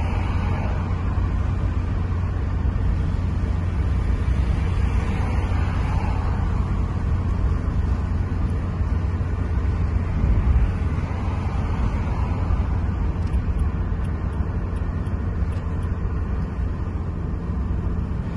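Road noise of a moving car heard from inside the cabin: a steady low rumble of engine and tyres on the road, with a faint hiss above it.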